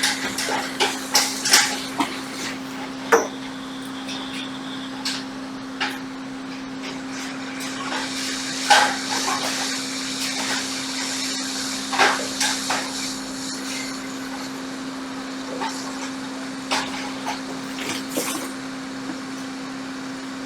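Scattered clicks and knocks of small hard objects being handled and set down on a workbench, irregular and a few seconds apart, over a steady low electrical hum.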